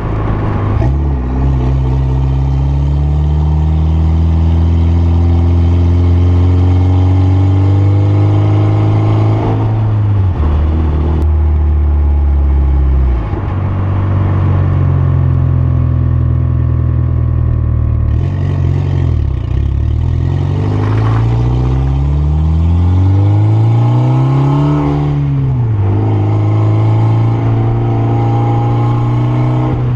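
Mitsubishi Lancer Evolution X's turbocharged 2.0-litre four-cylinder engine running while driving, its pitch rising and falling several times as the car accelerates and slows.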